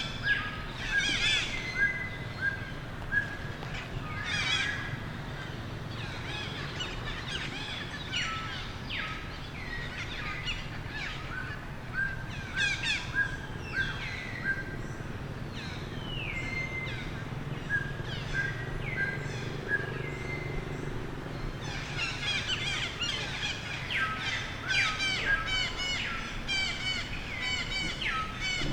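Many short, high-pitched chirping and squealing calls, some sweeping up and some down, coming in bouts and crowding together near the end, over a steady low background hum.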